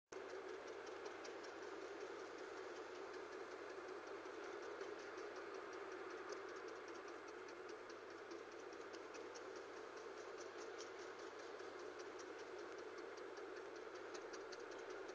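Regular light ticking, several times a second, over steady road and cabin noise inside a car rolling at about 20 mph; the owner suspects a tire after the tires were rotated.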